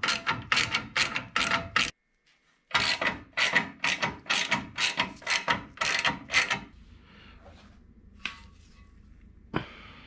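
Hand ratchet wrench clicking in quick back-and-forth strokes, about three a second, as bolts are loosened, in two runs with a short break, then a few single clicks near the end.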